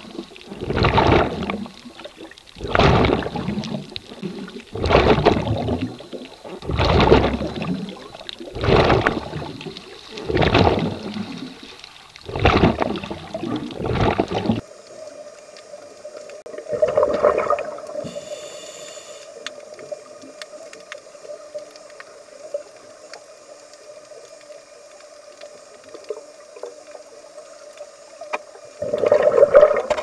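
Scuba regulator breathing underwater: surges of rushing breath and exhaled bubbles about every two seconds. About halfway through, a steady hum takes over, broken only by two bubble bursts, one shortly after the change and one near the end.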